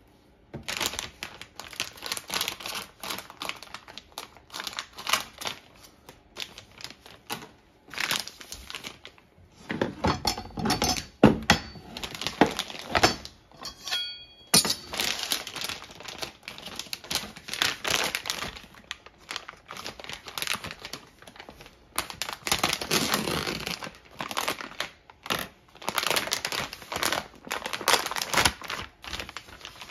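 Clear plastic vacuum-pack bag crinkling and rustling in repeated bursts as it is handled and opened, with a few knocks of a knife and cutting board in the middle.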